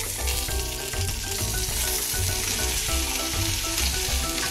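Dry-aged ribeye steak sizzling steadily in hot vegetable oil in a cast iron skillet as its edges are seared, with background music and a regular low beat beneath.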